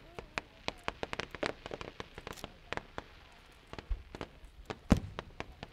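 Fireworks going off: a rapid, irregular crackle of sharp bursts, several a second, with a louder, deeper bang a little before the end.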